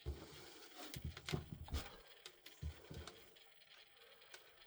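Faint handling sounds: a few soft knocks and clicks in the middle, as a piece of solder wire is picked up.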